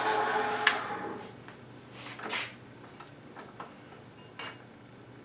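A small motor whirs steadily and stops about a second in, followed by scattered light metallic clicks and taps.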